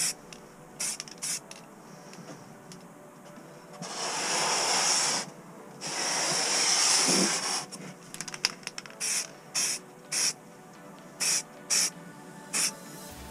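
Aerosol can of grey primer spraying a light coat: short hissing puffs, with two longer hisses of a second or two in the middle.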